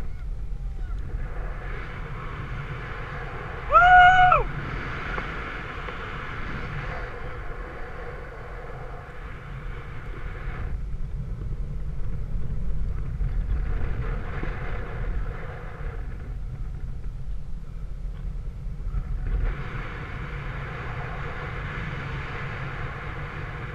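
A single short animal call about four seconds in, a rising-then-falling whistled cry over steady background noise.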